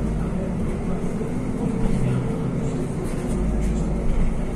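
Interior of a NefAZ 5299 city bus under way: a steady engine drone mixed with road and tyre noise, with light rattling ticks from the body and fittings.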